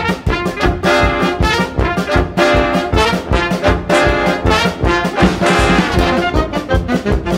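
Background music: a brass-led jazz band with trombone and trumpet playing over a steady beat. The full band comes in right at the start.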